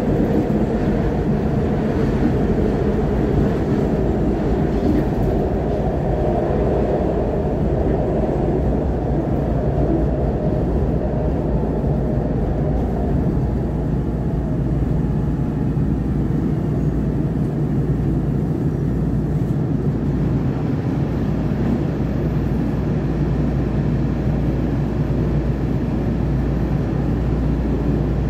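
Interior running noise of a SEPTA Market-Frankford Line Kawasaki M-4 elevated-subway car: a steady rumble of wheels on rail and traction motors. The higher part of the noise fades about halfway through as the train slows into a station and comes almost to a stop.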